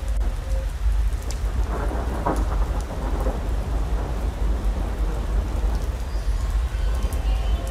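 Steady rain with a constant low rumble of thunder.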